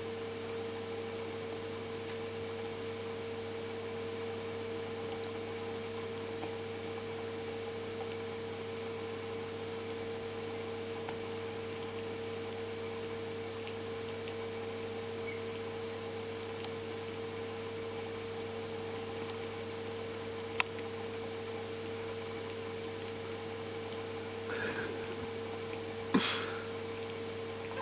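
Steady electrical hum with a constant tone, broken by a single sharp click about two-thirds of the way through and two short, louder sounds near the end.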